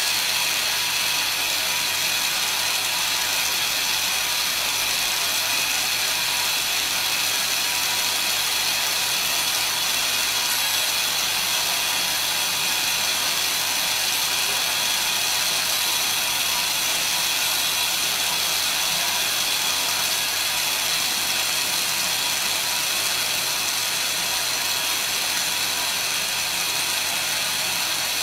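Endodontic contra-angle handpiece spinning a rotary file in a root canal, giving a steady high-pitched mechanical whine with a geared rattle that does not change.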